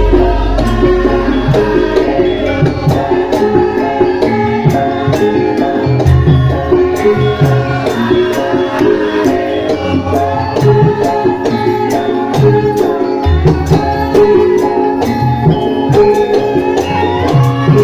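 Live Javanese gamelan music: metallophone melody lines over a fast, steady rattling tick. Deep drum strokes drop out and come back in about a third and two thirds of the way through.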